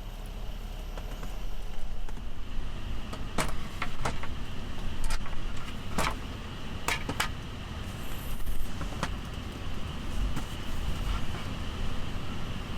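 Steady low rumble of a vehicle, with about half a dozen sharp clicks and knocks of things being handled.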